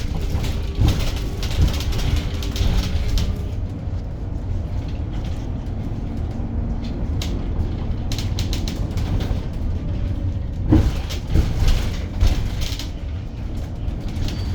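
Cabin sound of a 2021 Edison Motors SMART 093 electric city bus on the move: a steady low road and tyre rumble with a faint motor hum. Interior panels rattle and click throughout, with a sharper knock near the end.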